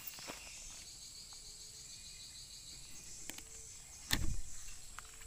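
Insects chirping steadily in a high, fast-pulsing drone over quiet outdoor ambience, with a louder dull thump about four seconds in.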